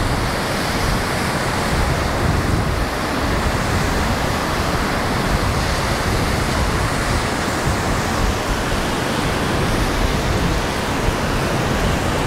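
Rough ocean surf breaking below the pier, mixed with wind rushing over the microphone: a loud, steady, even wash of noise with a heavy low rumble.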